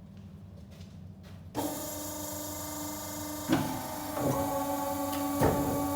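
A machine starts up about a second and a half in, over a low hum, and runs on with a steady whine and hiss. Three sharp knocks or clunks come over it in the second half.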